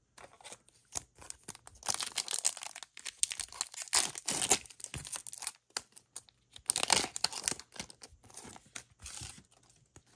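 A Pokémon trading-card booster pack torn open by hand, the wrapper tearing and crinkling in several short bursts.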